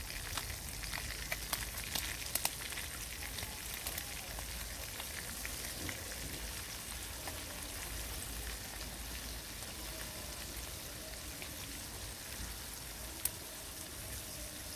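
Banga Mary fish frying in cooking oil in a pot: a steady sizzle with scattered crackles and pops, and one sharper click near the end.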